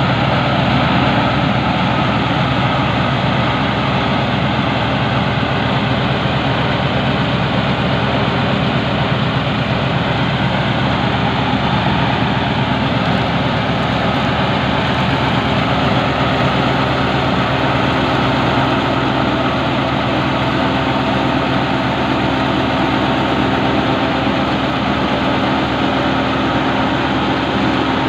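Massey Ferguson 385 tractor's four-cylinder diesel engine running steadily under load, powering a PTO-driven wheat-straw thresher whose machinery runs with it.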